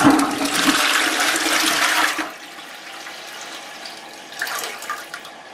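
Toilet flushing: a loud rush of water for about two seconds, then a drop to a quieter, steady hiss of running water.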